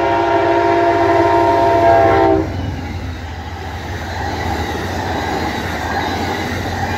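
Amtrak passenger train's horn sounding one long chord that cuts off about two and a half seconds in, followed by the steady rumble and wheel clatter of its stainless-steel passenger cars rolling past.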